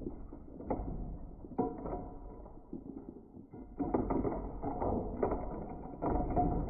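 A shredder grinding material through its cutters in a series of sudden surges, with a lull about halfway through before it picks up again.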